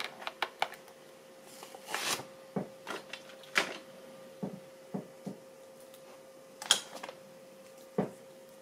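Small hard-plastic clicks and taps as 1:18-scale action figures are handled, re-posed and set on a plastic floor-tile base: about a dozen irregular knocks, the strongest about two, three and a half, six and a half and eight seconds in, over a faint steady hum.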